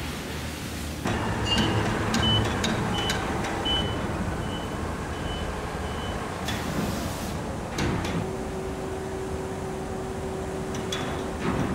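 Foundry floor noise with an overhead crane's warning beeper sounding a string of short high beeps, about one every three quarters of a second, that stops about six seconds in. A steady motor hum sets in about eight seconds in, as the crane holds a ladle of molten aluminum over a sand mold, with a few scattered metallic knocks.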